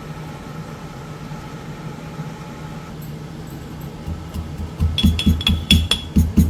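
Kitchen utensils knocking in a quick steady rhythm, about four strikes a second, starting about four seconds in, each strike a dull thud with a short metallic ring, over a low steady hum.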